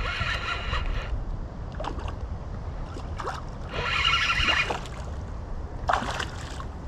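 Spinning reel whirring in short bursts, three times, about a second each, while a hooked bass is fought on the line, with a brief sharp rustle near the end over a low rumble.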